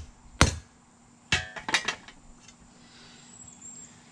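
Hand hammer striking a steel hay rake tine on an anvil, flattening it into a screwdriver blade: two sharp blows, then about a second later a ringing blow followed by two lighter taps, after which the hammering stops.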